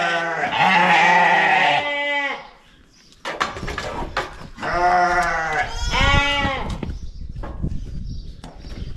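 Sheep bleating loudly: long, quavering bleats at the start and again about halfway through, with small knocks in between.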